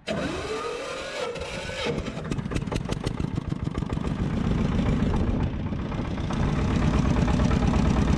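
Small fishing boat's engine running: it revs up in the first two seconds, then settles into a steady rapid clatter that slowly grows louder.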